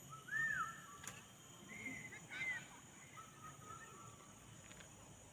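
Faint bird calls: a few short whistled notes rising and falling, with a brief steady note about three seconds in.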